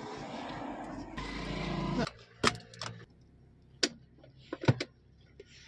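Car seat belt webbing drawn out of its retractor with a rising whirr for about two seconds. Then several sharp clicks and clacks as the metal tongue is fitted into the buckle and latched, the loudest near the end.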